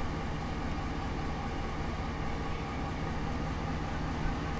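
A steady low mechanical hum with a few held tones, unchanging throughout.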